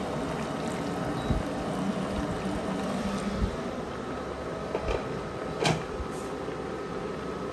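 Water pouring into a wok of clams, the pour ending about a second in, followed by a steady hiss from the wok heating, with a couple of light clicks.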